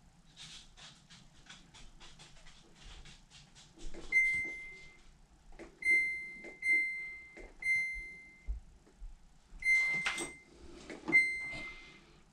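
Samsung front-load washer's control panel: the selector knob clicking through its detents, then six electronic beeps at one steady pitch as the knob and buttons are worked in its test mode, each beep starting with a click.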